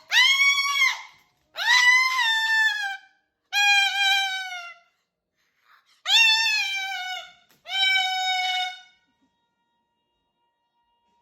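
Moluccan cockatoo giving a series of five drawn-out, squeaky whistling calls, each a second or so long and sliding down in pitch at its end, with short pauses between them.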